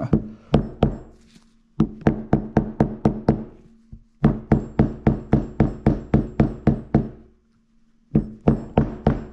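Hammer blows driving a 6902RS sealed bearing into the bearing seat of a Bafang G60 hub motor through a piece set on top of it. The blows come in four quick runs of about four a second with short pauses between, and each blow rings with a steady metallic tone.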